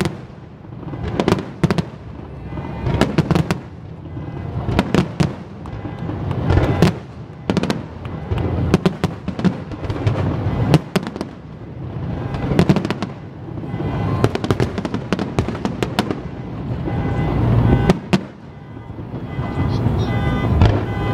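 Aerial fireworks shells bursting every second or two, each a sharp bang over a low rumble.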